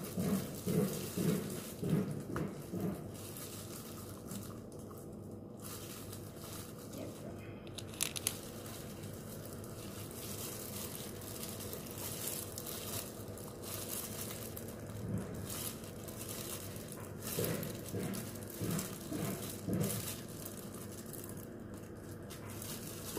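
Plastic food-handling gloves crinkling and rustling as hands stuff and work a raw whole chicken, with scattered small clicks. A low voice is heard briefly near the start and again past the middle.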